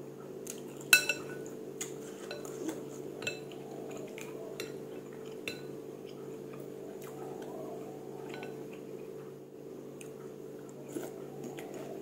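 Metal spoon and chopsticks clinking against a ceramic soup bowl while eating noodle soup: scattered light clinks, the sharpest about a second in. A steady low hum runs underneath.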